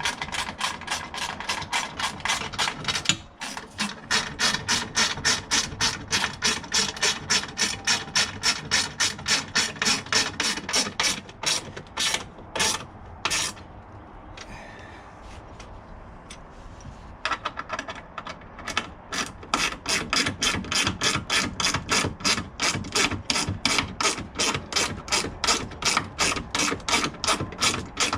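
Ratchet wrench with a 10mm socket clicking rapidly and evenly as bolts are run down. The clicking breaks off for a few seconds in the middle, then starts again.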